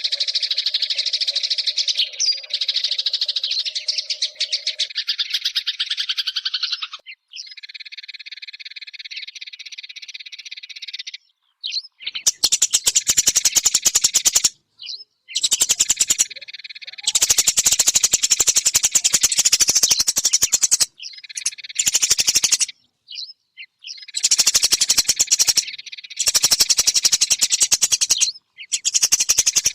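Eurasian tree sparrows chirping in fast, dense runs. The chirping stops dead several times and starts again, softer for a few seconds before about 12 seconds in, then louder.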